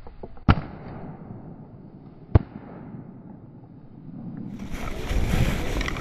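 Two shotgun shots, about two seconds apart, fired at a flushed bird.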